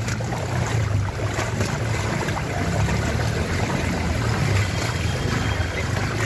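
Floodwater rushing and swishing along a flooded street, over a steady low rumble.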